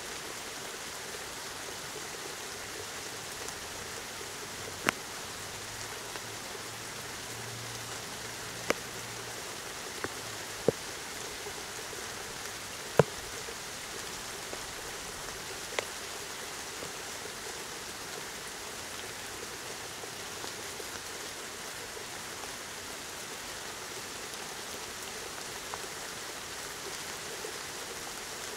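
Steady rain falling, an even hiss, with about half a dozen sharp single ticks standing out between about 5 and 16 seconds in.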